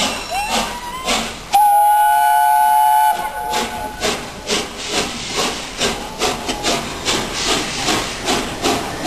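Peppercorn A1 class three-cylinder steam locomotive 60163 Tornado sounding its whistle in one loud blast of about a second and a half, after a brief rising note. Its exhaust beats come through steadily, about two a second, as it approaches.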